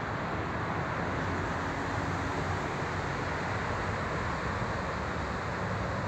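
Steady road traffic noise, an even rumble and hiss of passing vehicles with no single event standing out.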